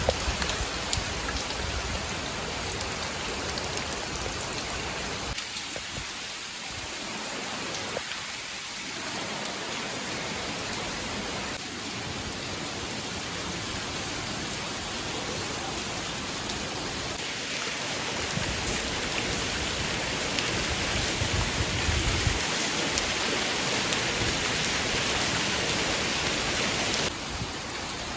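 Steady rain falling, a continuous hiss of drops with a low rumble about three quarters of the way through.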